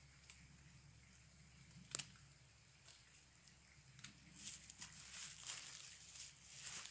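Footsteps and rustling in dry forest-floor leaf litter while a cord is handled, starting about four seconds in, after a single sharp click about two seconds in.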